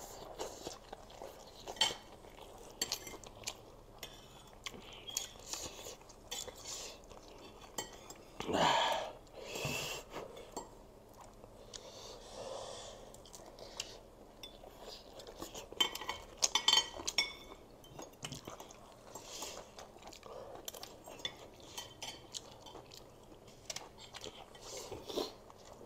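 Metal forks and spoons clinking and scraping on plates as two people eat noodles, with chewing. The clicks come scattered through, bunched about two-thirds of the way in.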